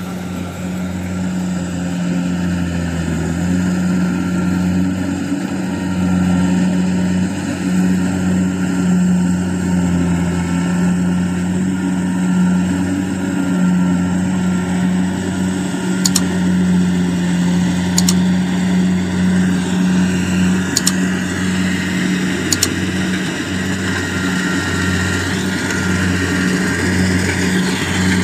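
Kubota DC-70 Plus rice combine harvester's diesel engine running steadily under load as it cuts rice in deep mud and comes closer, slowly getting louder with a rising whine near the end. There are four short, sharp clicks in the second half.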